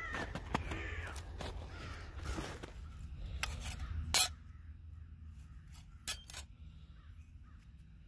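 American crows cawing during the first few seconds, then several sharp metal clinks as the perforated panels of a folding camp wood stove are fitted together, the loudest about four seconds in.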